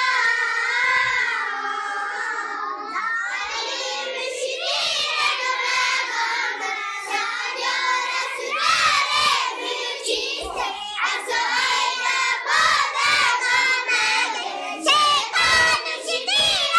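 A group of young schoolchildren singing their school prayer together in unison. The first few seconds are long held notes, after which the singing breaks into shorter, choppier phrases.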